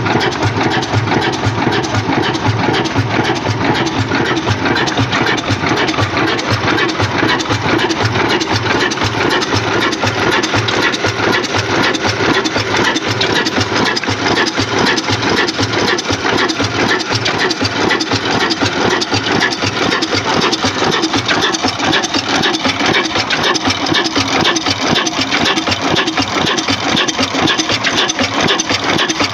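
Old stationary diesel engine with a large flywheel running steadily, belt-driving a centrifugal water pump; an even, fast mechanical beat.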